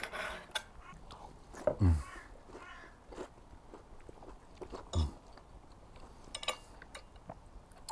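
A man chewing a mouthful of toast topped with meat ragout, with two short falling hums about two and five seconds in, and a light clink of cutlery near the end.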